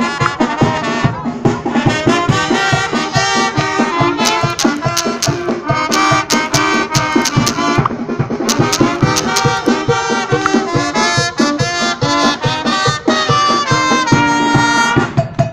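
Brass band playing lively dance music, with trumpets and trombones over a steady drum beat.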